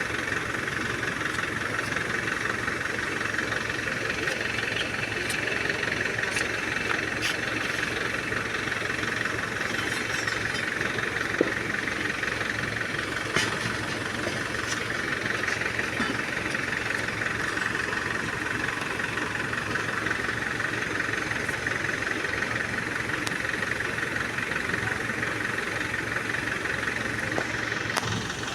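Diesel engine of a 14-ton hydra pick-and-carry crane running steadily under work, with a few sharp clicks about eleven and thirteen seconds in.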